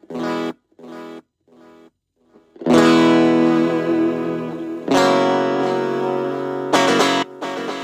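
Single-coil Stratocaster electric guitar played through a Lekato Unique battery mini amp with its built-in delay on: a short chord repeats as fading echoes about every 0.7 seconds, then three strummed chords ring out a couple of seconds apart.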